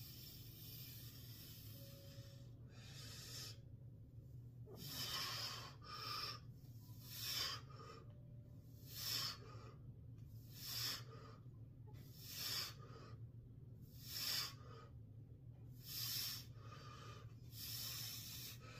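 Heavy, rhythmic breathing of a man swinging 10 lb Indian clubs: a hard breath comes about every second and a half to two seconds, starting a few seconds in, over a steady low hum.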